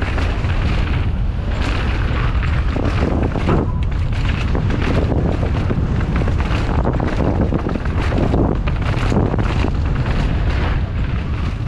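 Mountain bike ridden fast downhill over rocky ground: tyres crackling and knocking over stones under heavy wind rumble on the microphone.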